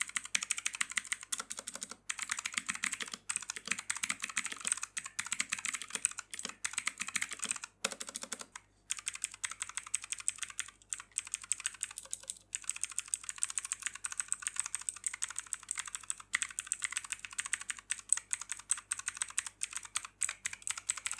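Typing on a mechanical keyboard with clicky blue switches (VicSync PC335): a rapid, continuous run of sharp key clicks with short pauses between bursts.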